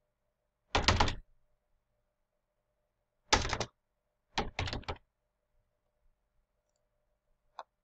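Computer keyboard typing in three short clusters of rapid keystrokes, with a single faint click near the end.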